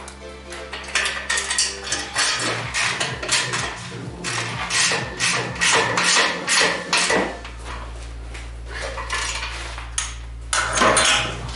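Irregular metal clanks and knocks from steel tubing, brackets and bolts being handled and fitted on a steel go-kart chassis frame, busiest through the middle and again near the end.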